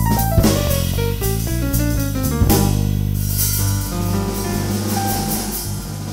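Instrumental theme music with a drum kit and bass line, played as a television show's break bumper.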